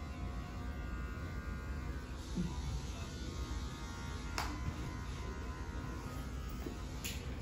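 Electric hair clippers buzzing steadily during a haircut, with two sharp clicks, one about four and a half seconds in and one near the end.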